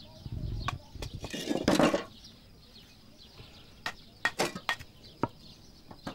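A mason's trowel knocking on fired clay brick, several sharp separate taps in the second half as a brick is chopped and trimmed to fit. Before them, about a second and a half in, comes a short rough scraping, the loudest sound.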